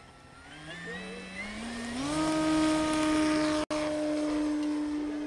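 Radio-controlled 2 m model T-28 Trojan airplane's motor and propeller winding up in pitch as the throttle is opened for the takeoff run, then holding a steady high tone at full power as it lifts off. The sound drops out for an instant about two-thirds of the way through.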